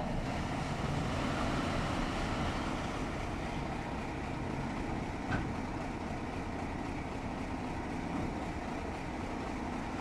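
Engine of a concrete transit mixer truck running steadily under general construction-site noise. There is a single faint knock about five seconds in.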